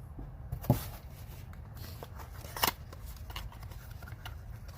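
Product packaging being handled and opened by hand: light crinkling and small ticks, with two sharper clicks, one under a second in and one nearly three seconds in, over a low steady hum.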